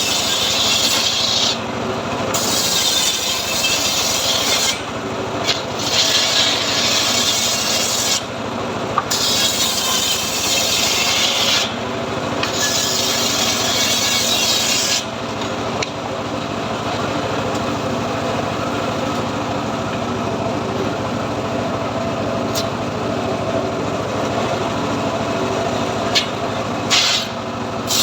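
Home-built sawmill sawing teak wood: the blade rasps through the timber in about five cuts of two to three seconds each with short breaks. After about halfway it runs steadily without cutting, with a few clicks.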